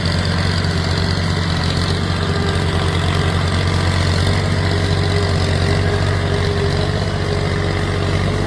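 Heavy machinery engine running steadily at an even, low idle-like speed.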